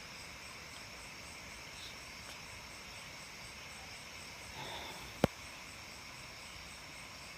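Night insects, crickets among them, chirping steadily in several high, even layers, the highest one pulsing at an even rate. A single sharp click sounds a little past halfway.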